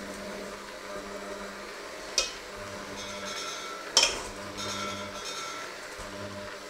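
Electric hand mixer running steadily, its beaters working a thick mixture in a stainless steel bowl. Twice, about two and four seconds in, the beaters knock against the bowl with a sharp clink, and the bowl rings briefly after the second one.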